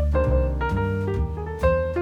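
Background music: a relaxed jazz-style tune on piano, over low bass notes.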